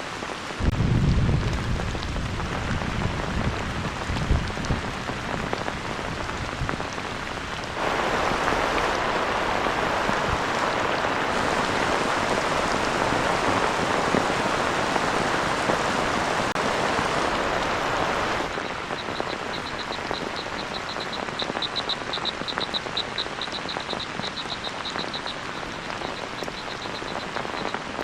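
Heavy rain falling steadily, louder and brighter through the middle stretch, with a low rumble in the first few seconds. Near the end, a rapid high-pitched trill runs for several seconds over the rain.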